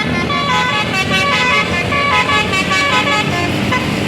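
A bus's basuri telolet horn, a multi-tone musical horn, playing a quick melody of short stepped notes that stops about three seconds in.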